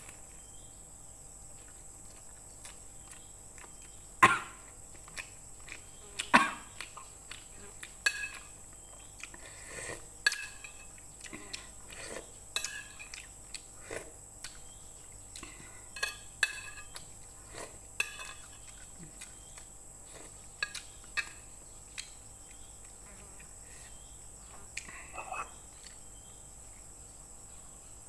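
Eating sounds: a metal spoon clinking and scraping on a ceramic plate, with slurps of noodle soup, as scattered short sharp sounds, the loudest about four and six seconds in.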